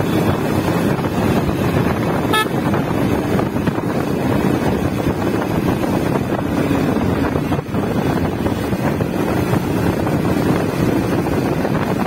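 Steady wind noise on the microphone over a motorbike running at riding speed, with a brief horn toot about two seconds in.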